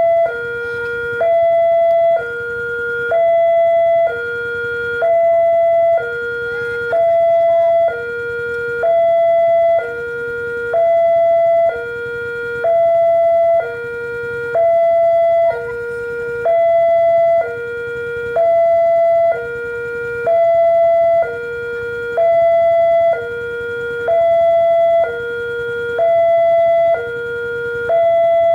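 Railroad level-crossing warning siren sounding from a horn loudspeaker on the crossing mast. It alternates steadily between a higher tone and a lower tone, each about a second long, with the higher tone louder. It is warning that a train is approaching while the barriers are down.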